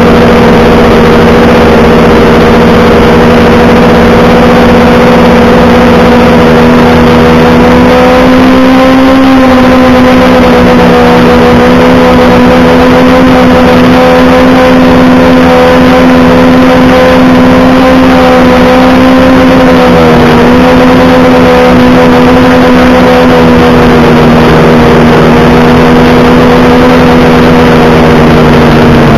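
An engine running at a steady high speed, very loud and distorted, its pitch wavering slightly and dipping briefly about two-thirds of the way through.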